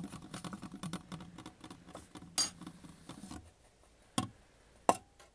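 A glass stirring rod scraping orange lead tetraoxide powder across the bottom of a steel pot as it is heated on a hot plate: a rasping scrape full of small ticks, stirred to keep the heating even. The scraping stops about three and a half seconds in, and two sharp knocks follow near the end.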